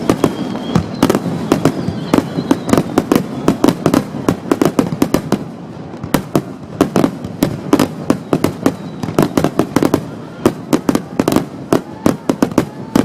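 Fireworks display: rapid volleys of aerial shells bursting, several bangs a second, easing briefly about halfway and again near the end before picking up. The blasts are recorded through a digital camera's microphone, which makes them sound distorted.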